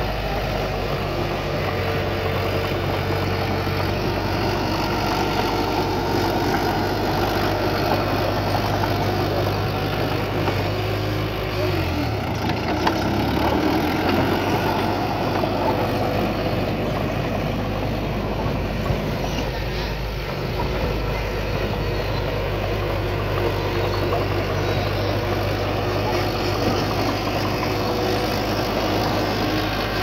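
Diesel engine of heavy earthmoving equipment running steadily. Its note dips briefly about twelve seconds in, then comes back up.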